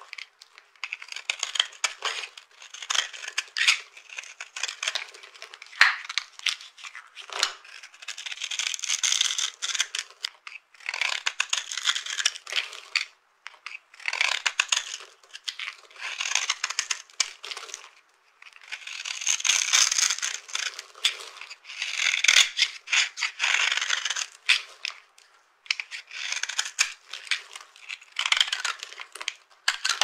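Knife blade cutting into a dry bar of soap, the scored surface breaking off in small cubes with dense, crisp crackling crunches. The crunching comes in runs of a second or two with short pauses between strokes.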